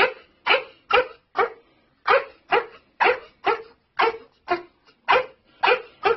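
A dog coughing and hacking in a steady, rapid series, about two harsh coughs a second, as if choking on something.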